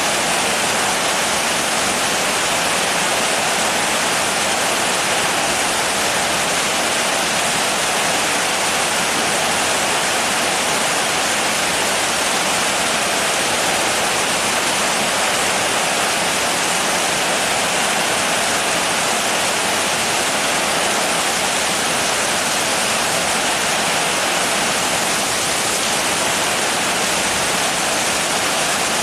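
Steady heavy rain, an even unbroken hiss with no separate drops standing out.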